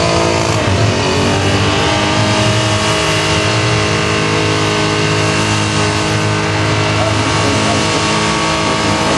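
Holden VK Commodore V8 held at steady high revs during a burnout, its rear tyres spinning in a cloud of smoke. The engine note is loud and nearly constant in pitch.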